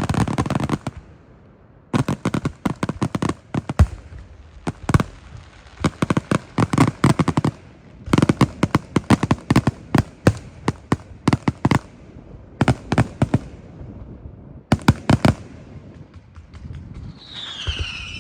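Fireworks going off in rapid clusters of sharp crackling bangs, pausing briefly between volleys. Near the end a whistling firework sounds, its pitch falling and then holding steady.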